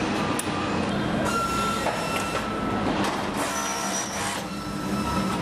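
Assembly-line factory noise: a steady machinery hum with scattered clicks and knocks, and a brief high squeal about a second in.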